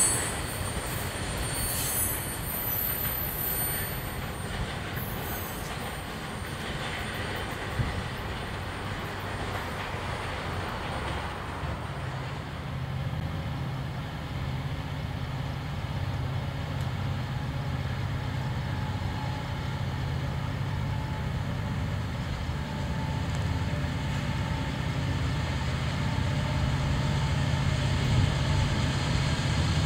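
Cars of a passing intermodal freight train rolling away and fading. About twelve seconds in, the steady low drone of approaching diesel locomotives takes over and grows louder: a Union Pacific EMD SD9043MAC leading two GE AC44CW units.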